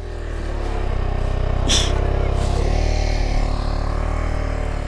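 A motorcycle engine running at low revs, growing louder over the first couple of seconds and then holding steady, with a short high-pitched sound about two seconds in.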